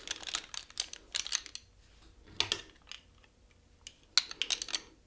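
Plastic eyeglass frames clicking and rattling against each other in short clusters as several stacked pairs are put on and adjusted on the face.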